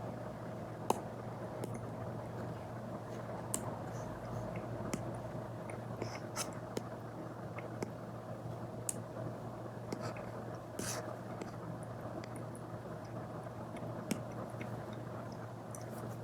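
Apple Pencil Pro tip tapping and stroking on an iPad's paper-like screen protector: irregular light taps and short scratches over a steady low hum.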